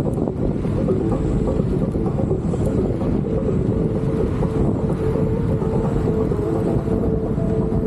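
Wind buffeting the camera microphone, a steady low rumble, with a steady tone running underneath it.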